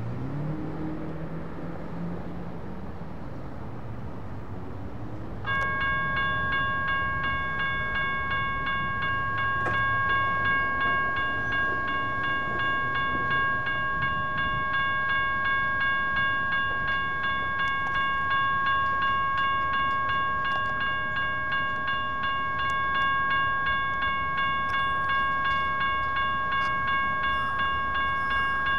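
Railroad crossing warning bells start suddenly about five and a half seconds in and keep up a rapid, steady ringing as the crossing gates lower. Before they start, a car passes on the street, its engine note rising.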